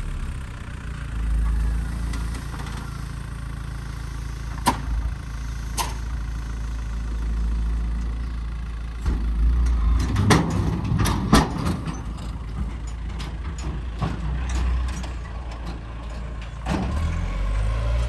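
A backhoe loader's diesel engine runs steadily at low revs. Sharp knocks come through about five and six seconds in, then a burst of clanks and ticks around ten to twelve seconds in, with another knock near the end.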